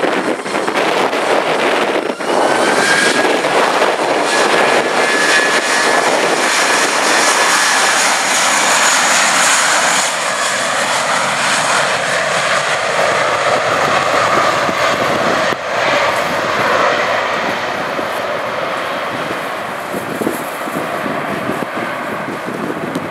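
Twin jet engines of an Airbus A320 at takeoff thrust: a loud, steady rush with a high whine that rises slightly a few seconds in. It fades a little toward the end as the aircraft rolls away down the runway, and there are two abrupt breaks where the recording is cut.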